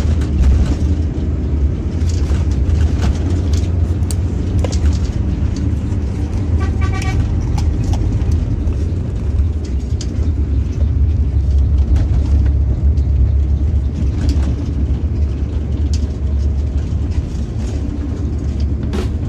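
Steady low drone inside a moving coach from its Mercedes-Benz 1626 engine and the road, with small clicks and rustles from a paper cup, plastic lid and cardboard snack box being handled. A quick run of short beeps comes about seven seconds in.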